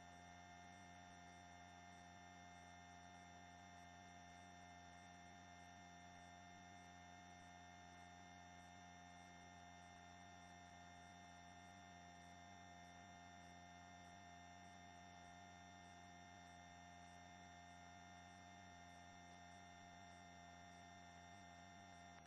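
Near silence: a faint, steady electronic hum made of several constant tones, unchanging throughout.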